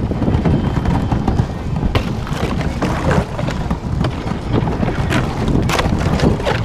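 Thin lake ice cracking and crunching in many irregular sharp snaps as a kayak and its paddle break through it, with one especially loud crack near the end, over a steady low rumble.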